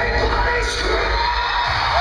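Live metalcore band playing loud amplified music in a club while the crowd cheers and shouts.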